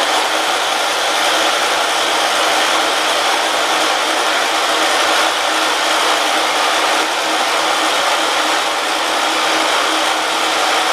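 Riding mower's engine cranked over by its electric starter with the spark plug boot pulled so it cannot fire: a steady cranking drone with no catch or change. The engine is being spun over so that the loosened variator can reset itself as the clutch pedal rises.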